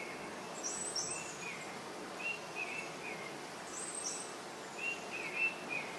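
Forest ambience with small birds calling: short chirps in little groups every second or so, some lower and some higher and thinner, over a soft steady hiss.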